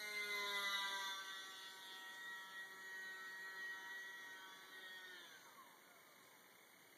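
E-flite UMX Yak 54 micro RC plane's small electric motor and propeller whining in flight with a fairly steady pitch. About five seconds in, the whine drops in pitch and fades away.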